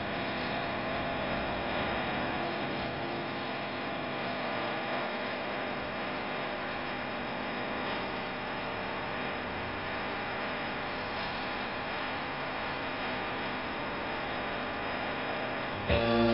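Electric potter's wheel running with a steady hum while a clay bottle is shaped on it.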